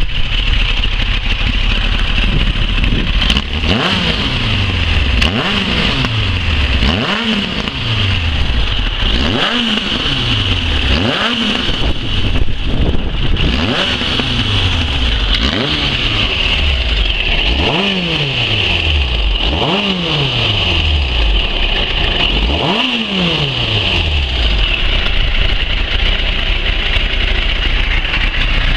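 Kawasaki Ninja sport bike engine idling, then blipped on the throttle about ten times, roughly every two seconds. Each rev rises sharply and sinks back to idle. The bike runs out through an aluminium end can, and the engine settles into a steady idle for the last few seconds.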